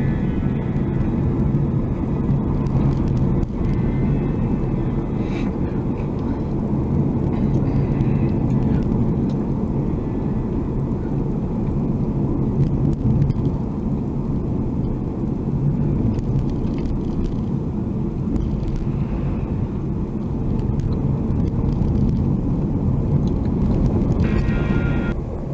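Steady low rumble of a car's road and engine noise inside the cabin while driving, as picked up by the dashcam's built-in microphone. A short higher-pitched tone sounds near the end.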